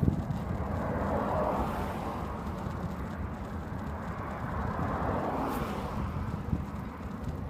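Steady low rumble of wind buffeting the microphone and road noise from moving along a road, swelling twice, about a second and a half in and again about five and a half seconds in.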